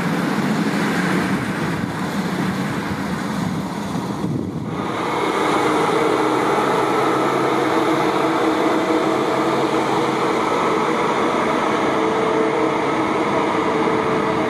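Rolling rail noise of a train. About four and a half seconds in, it gives way to an ICE 1 high-speed train's class 401 power car running past close by: a steady electric hum with several held tones over the wheel and rail noise.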